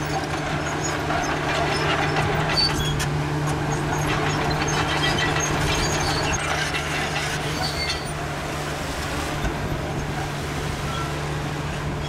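Komatsu crawler bulldozer's diesel engine running steadily under load as it pushes dirt, with the steel tracks clattering and clanking throughout.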